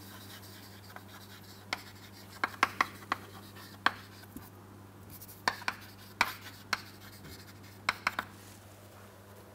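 Chalk writing on a chalkboard: short taps and scrapes as the letters are formed, about a dozen sharp clicks at uneven intervals, over a low steady hum.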